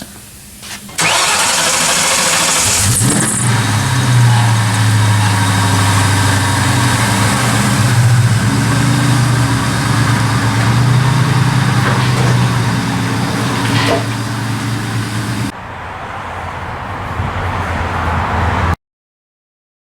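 A car engine turns over and catches about a second in, then runs steadily with its pitch swelling and easing a little. Near the end it drops quieter before cutting off.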